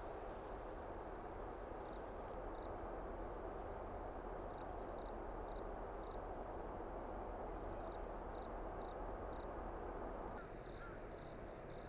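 Faint outdoor ambience: a steady low rumble with insects chirping high and thin, about two or three chirps a second. The rumble eases a little near the end.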